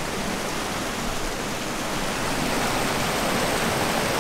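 River water pouring over a small log weir, a steady, even rush of water.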